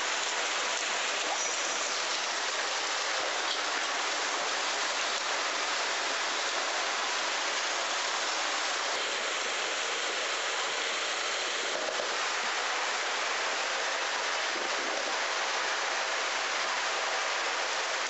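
Tsunami floodwater surging past, a steady, unbroken rush of water.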